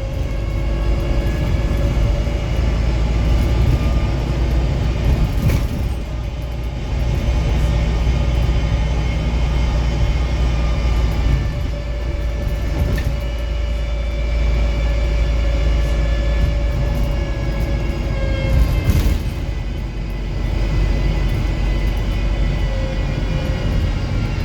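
Wrightbus StreetDeck HEV hybrid double-decker bus under way, with its Mercedes-Benz OM934 diesel engine and Voith transmission. A heavy low rumble runs under a whining drive-train tone that slowly rises and falls with speed. There are a few brief knocks.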